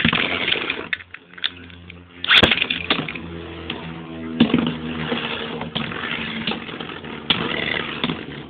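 Beyblade spinning tops, two Phantom Orions, set off with a sharp zip of a string launcher at the start and again about two seconds in. They then whir steadily as they spin in a plastic stadium, and clack against each other a few times.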